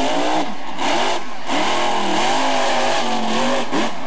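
Monster truck engine revving hard, its pitch rising and falling several times, with brief throttle lifts about half a second and a second and a quarter in.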